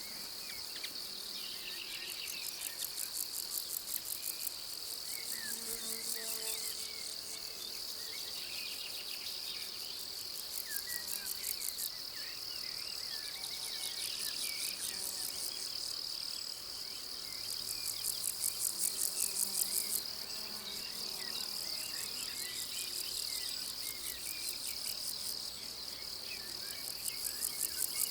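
Summer pasture insect chorus: a steady high-pitched trill, with bouts of rapid rhythmic chirping a few seconds long that start and stop several times.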